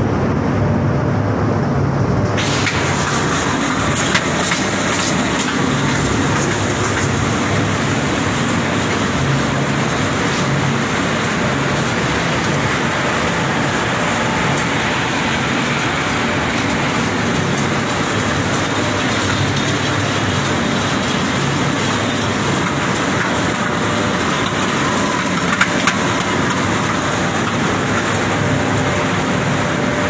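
Machinery of a PE film recycling washing line running: a steady, loud mechanical din over a low hum, turning hissier about two seconds in, with a couple of brief knocks.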